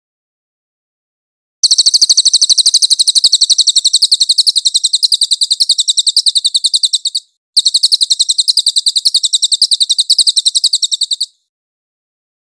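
Crested jay (cililin) calling a fast, high-pitched rattling trill in two long runs: one of about five and a half seconds, then after a brief break another of about four seconds.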